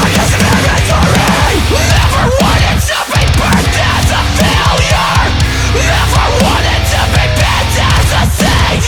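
Heavy metalcore music: distorted guitars, bass and drums playing loud and driving, with a short break in the low end about three seconds in.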